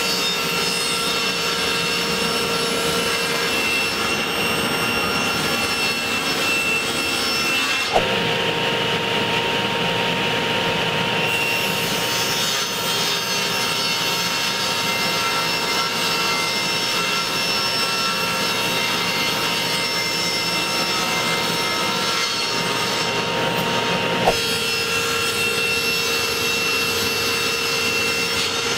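Table saw running and ripping 3/4-inch plywood panels, a steady power-tool noise that shifts abruptly twice to a different machine tone and back.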